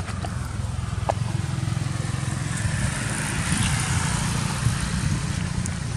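A steady low outdoor rumble that grows a little louder in the middle, with a brief faint squeak about a second in.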